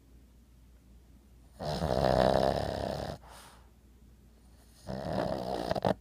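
An 11-year-old Boston terrier snoring in her sleep. There are two snores about three seconds apart: a longer, louder one about a second and a half in, and a shorter one near the end.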